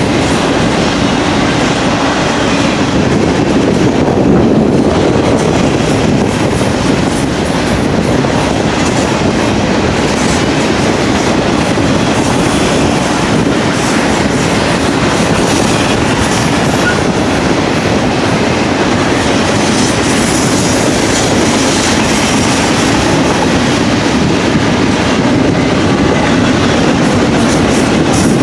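BNSF double-stack container train's cars rolling past, a steady loud rumble with wheels clicking on the rails.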